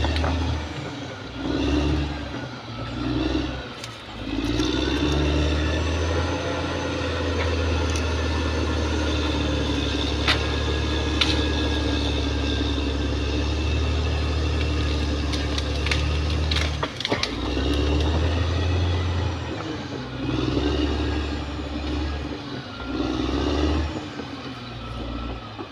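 Caterpillar D6R XL bulldozer's diesel engine working under load, its pitch rising and falling several times as the load changes, with a few sharp clanks around the middle.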